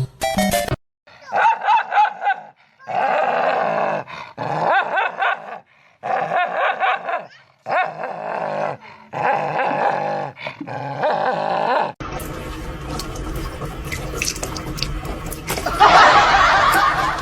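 A dog vocalizing in a run of pitched, wavering calls, each burst about a second long with short gaps between. About twelve seconds in, it gives way abruptly to a steady noisy background with a louder burst near the end.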